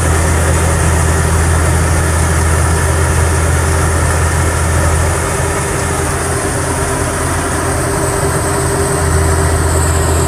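Tracked rice combine harvester's diesel engine running steadily with a loud low hum. The low hum eases for a few seconds midway and comes back near the end.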